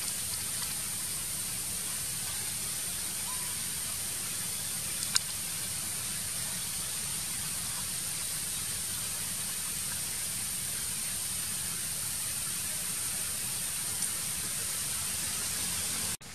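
Steady, even outdoor hiss with a thin high-pitched band running through it, and a single sharp click about five seconds in.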